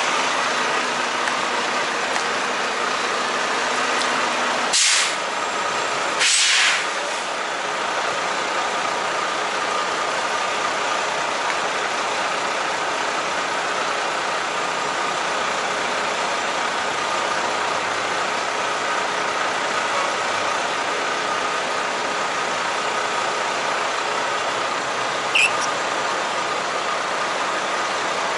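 Semi truck running steadily, with two short hisses of air from its air brake system about five and six and a half seconds in.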